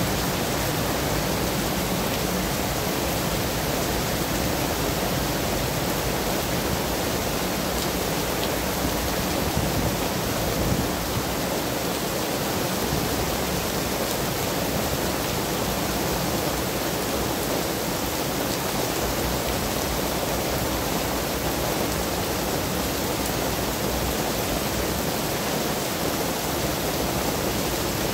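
Heavy rain pouring steadily onto a wet street, a dense, even hiss. A low rumble of passing traffic sits under it in the first third and fades out.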